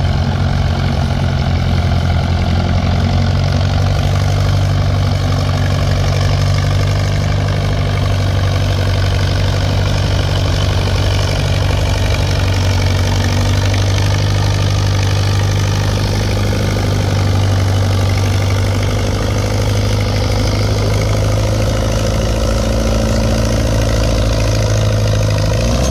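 Fordson Major diesel tractor engine running hard and steady under full load while dragging a weight-transfer sled on a tractor pull.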